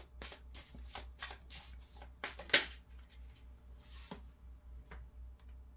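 Tarot deck being shuffled by hand: a quick run of card clicks and flicks, the loudest about two and a half seconds in, then a few scattered clicks as the shuffling slows. A faint low hum runs underneath.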